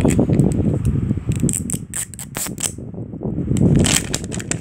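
Plastic wrapping on an L.O.L. Surprise ball being crinkled and peeled by hand, crackling in bursts about one and a half seconds in and again near the end, over a low rubbing noise from the handling.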